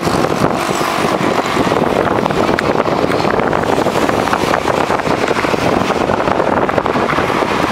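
Steady loud wind rush buffeting the microphone of a camera carried on a moving bicycle, with road noise mixed in.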